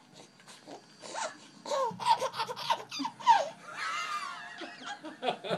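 Baby laughing and squealing with excitement in short bursts starting about a second in, with one long, high squeal about four seconds in.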